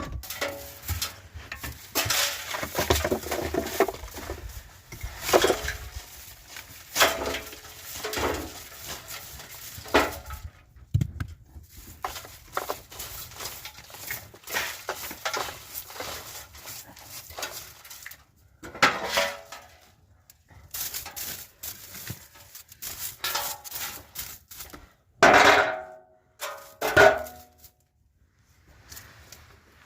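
Irregular knocks and clinks of hard objects being handled, several with a short ringing tone; the two loudest come near the end, about two seconds apart.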